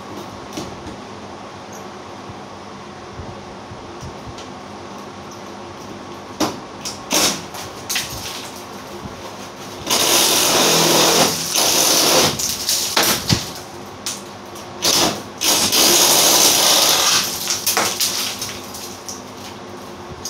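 Cordless drill running in loud bursts of a couple of seconds each, about halfway through and again a few seconds later, backing out the last bolt that holds a ceiling-mounted unit. A few short knocks come before the first burst.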